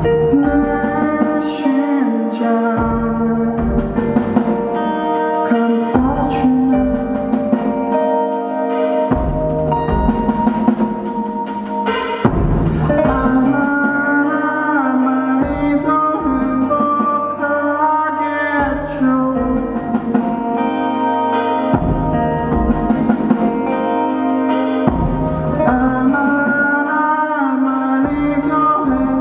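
A rock band playing live: electric guitar over drums and bass, continuous and loud.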